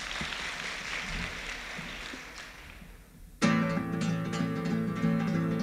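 Audience applauding, dying away over about three seconds, then a strummed acoustic guitar starts suddenly and plays the song's introduction.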